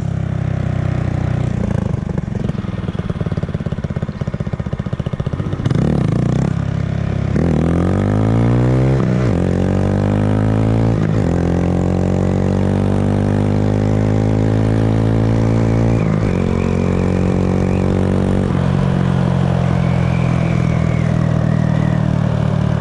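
A 125 cc single-cylinder mini motorcycle engine running at low throttle, then revving up about seven seconds in, its pitch climbing through several gear changes before it settles into a steady cruise.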